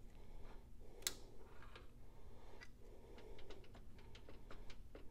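Cross slide of a Hypromac 1550 metal lathe being worked back and forth by hand at its handwheel: faint, irregular metal clicks and ticks, with one sharper click about a second in, as the slack between the cross-slide screw and its nut is taken up. The nut is being tightened by its adjusting set screw to cut about 70 thou of play. A low steady hum lies underneath.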